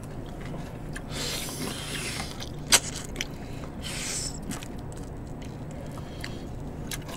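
Eating sounds of meat being gnawed off pork spine bones from bone hangover soup, with two longer hissing sounds and a sharp click about three seconds in.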